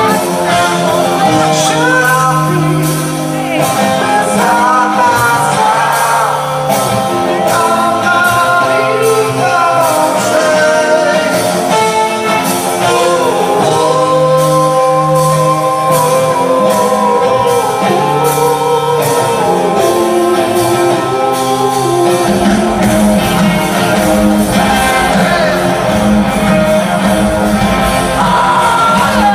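Live rock band playing, a singer's voice carrying the melody over guitars, heard from far back in a large arena. About three-quarters of the way through, a deep bass part comes in under the song.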